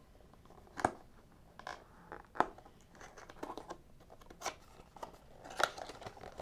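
Hands working open the end flap of a cardboard knife box: a handful of sharp clicks and scrapes of cardboard scattered a second or so apart, the loudest about two and a half seconds in.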